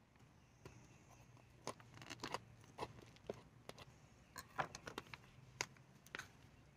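Faint, irregular clicks and crackles from hands handling a potted succulent and its soil while it is worked out of its pot.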